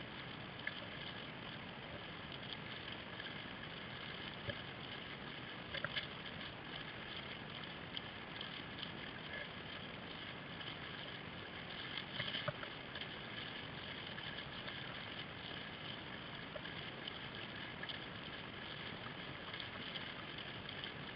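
Water rushing and lapping along a whitewater kayak's hull as it is paddled across choppy open water, with short paddle splashes now and then. The loudest splashes come about six seconds and about twelve seconds in.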